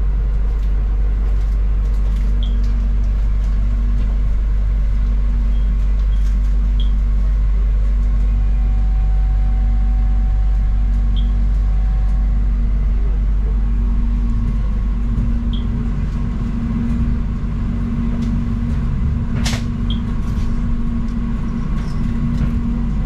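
Steady low rumble of a train running, heard from inside the carriage, with one sharp click about 19 seconds in.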